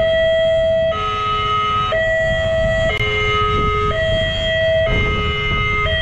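Railway level-crossing warning siren sounding its hoarse two-tone alarm, switching between a higher and a lower tone about once a second, the signal that a train is approaching.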